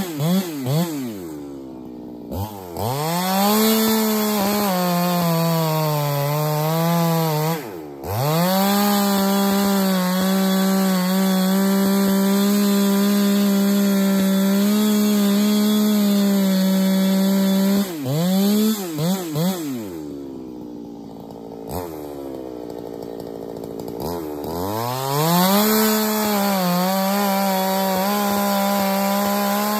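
Ported big-bore chainsaw bucking a large log at full throttle, its pitch sagging as the chain loads in the cut. It drops to idle twice, briefly about two seconds in and for a few seconds past the two-thirds mark, with quick throttle blips before it goes back into the wood.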